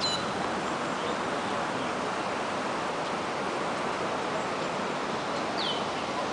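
Steady outdoor city ambience: an even wash of noise with no speech, and one short high falling chirp about five and a half seconds in.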